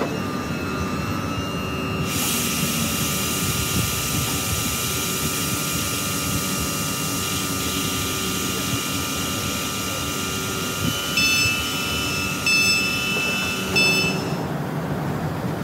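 South Western Railway electric multiple unit standing at the platform, its onboard electrical equipment giving a steady whine that stops near the end. Three short high beeps sound about a second and a half apart near the end.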